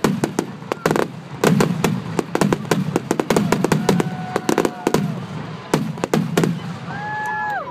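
Fireworks display: aerial shells bursting in a rapid run of sharp bangs, several a second, thinning out over the last second.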